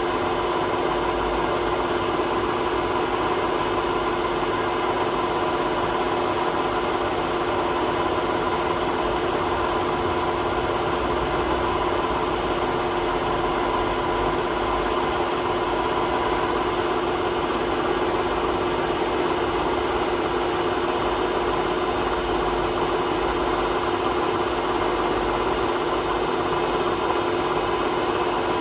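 Hotpoint WMA32 washing machine spinning at a steady speed, with a constant drone and whine over a low rumble from its worn drum bearings.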